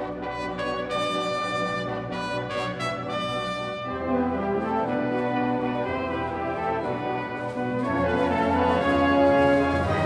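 School wind band playing sustained brass chords, bright and high at first. Lower brass and bass come in about four seconds in, and the band swells louder near the end.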